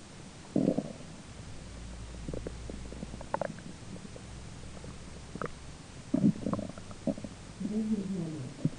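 A person's belly grumbling with digestion: irregular gurgles and pops, with a short loud burst about half a second in and a wavering, pitched groan near the end.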